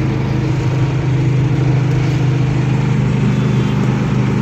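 Engine drone and road noise heard inside the cab of a moving vehicle cruising on a highway, a steady low hum that holds throughout.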